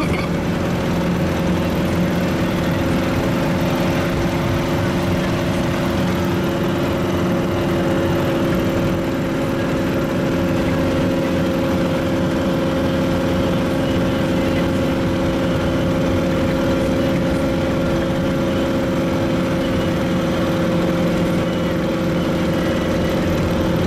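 Vehicle engine running steadily under a broad rumble of tyre and road noise, heard from inside the cab while driving on a rough unpaved road; a low, even drone with several held tones that barely change.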